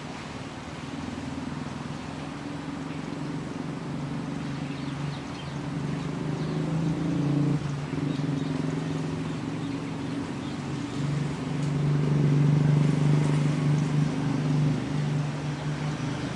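Light drizzle hissing steadily, with a low engine hum that grows from about five seconds in, is loudest near the end, then eases off.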